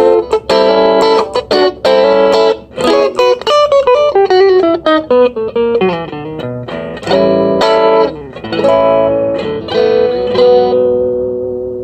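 Electric guitar played through an Orange Crush Mini amp's own small speaker: chords, a falling run of single notes a few seconds in, more chords, then a final chord left to ring out and fade.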